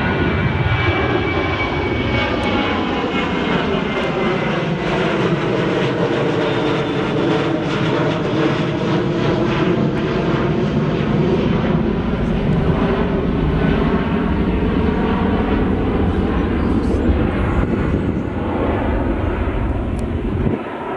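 Boeing 737 jet airliner's twin turbofan engines at climb power, a loud steady roar as the jet passes overhead and moves away. The whine drops in pitch in the first few seconds, and a slow sweeping, phasing sound runs through the rumble.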